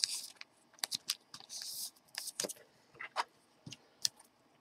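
Light clicks and short plastic rustles of a trading card being slid into a clear soft plastic penny sleeve and handled.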